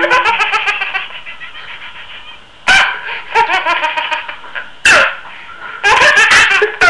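A baby laughing in repeated runs of short, rapid pulses, broken by three sudden, very loud sharp sounds.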